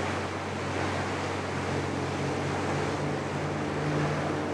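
Herring seine boats running at speed: the steady drone of their engines under the rush and splash of water off the hulls.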